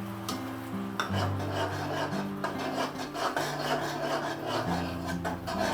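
A spoon scraping and stirring sauce in a pan, starting about a second in, as cornflour slurry is worked in to thicken it. Steady background music runs underneath.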